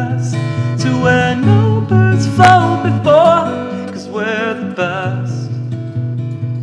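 Acoustic guitar playing a song, with a voice singing long, wavering notes over it.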